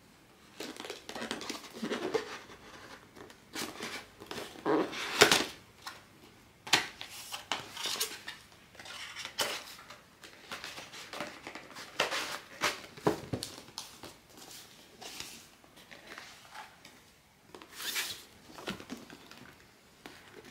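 Hands handling blind-box toy packaging and its contents: an irregular run of taps, clicks and rustles, the sharpest about five seconds in.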